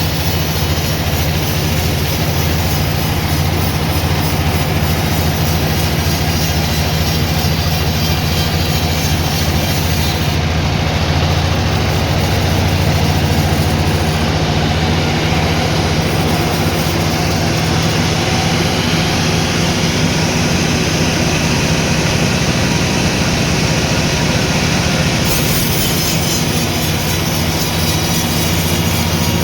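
Sawmill machinery running: a loud, steady drone with a strong low hum and a constant rushing noise that holds level throughout.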